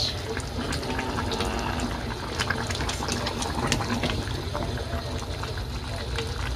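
Stew simmering in a saucepan while a plastic spatula stirs it: a steady bubbling hiss with many small clicks and scrapes of the spatula against the pan.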